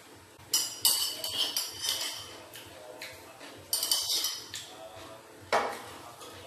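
A metal spoon scraping and clinking against a plate in two ringing spells, about half a second in and again near four seconds in. A single duller knock comes about five and a half seconds in.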